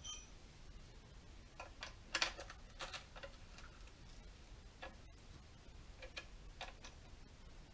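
Scattered light clicks and taps of metal parts and tools being handled on a chainsaw during assembly, with a short ringing metallic clink at the start and a quick cluster of louder clicks about two seconds in.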